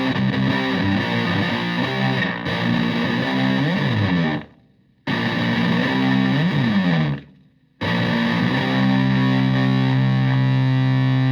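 Stratocaster with single-coil pickups through a Tone Bender MkII–style fuzz pedal (Marshall Supa Fuzz type) into a Fender Twin Reverb–style amp, playing a heavily fuzzed riff with string bends. The riff is choked off abruptly twice, and near the end a fuzzed note is held and sustains.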